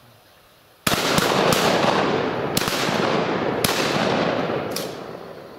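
A ragged volley of shotgun shots, about six sharp reports at uneven intervals, starts suddenly about a second in. The reports run together in a dense rush of blast noise and echo that fades out over the last second or so.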